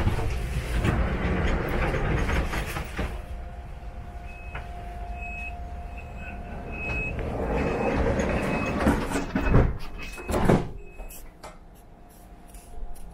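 Electric S-Bahn train heard from inside the carriage, running and slowing into a station, with a steady hum under the running noise. Short high tones repeat several times in the middle. A few loud rushes and knocks come near the end, then it goes quieter as the train comes to a stop.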